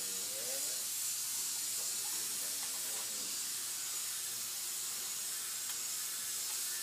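Steady, even background hiss, strongest in the high range, holding at one level throughout.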